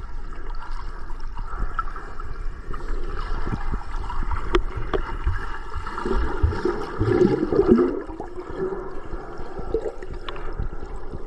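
Sea water sloshing and gurgling, a continuous watery rush with a few small knocks and a louder surge about two-thirds of the way through.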